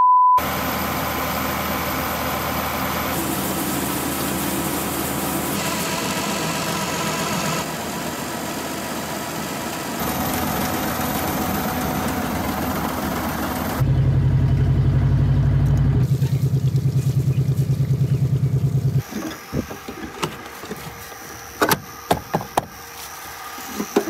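A cut-together run of harvest machinery sounds opens with the tail of a steady test-card beep, then engines running and corn pouring into a bin, each changing abruptly every few seconds. A louder engine with a fast, low throb runs for about five seconds past the middle. Near the end, scattered clicks and knocks sit over a quieter background.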